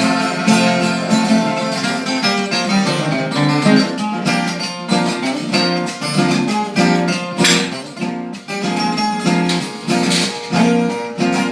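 Instrumental break of a Brazilian moda de viola song: viola caipira and acoustic guitar playing a fast, rhythmic plucked and strummed pattern, with no singing.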